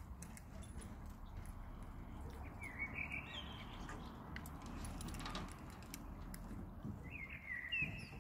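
Footsteps knocking on a floating harbour pontoon over a steady low background rumble. Two short squeaky chirps with a stepped, falling pitch come about three seconds in and again near the end.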